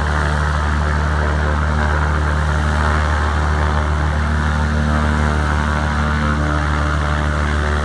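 Piston engine of a light single-engine propeller airplane running steadily at low taxi power, with a constant low drone and its propeller hum.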